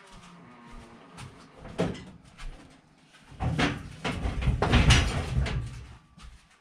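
Irregular knocks, bumps and rattles of things being handled and moved about. There are a few single knocks at first, then a louder busy cluster a little past the middle.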